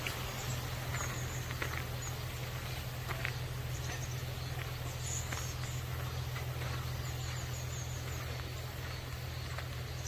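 Rural outdoor ambience: a steady low rumble with a few faint clicks, and brief high chirps from small birds now and then.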